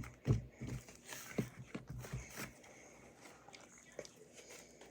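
Slime being squished and worked by hand: a run of small sticky clicks and pops, busiest in the first two and a half seconds, then sparser.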